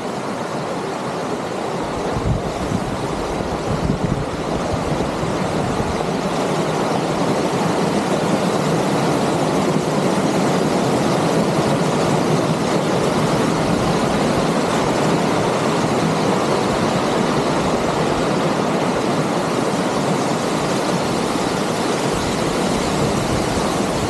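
Small waterfall on a creek, water pouring and splashing over rocks in a steady rush that grows louder over the first several seconds.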